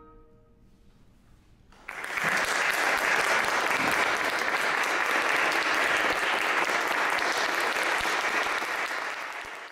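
The last chord of the bowed strings dies away, and after a short hush an audience breaks into applause about two seconds in. The clapping is steady and dense, then cuts off near the end.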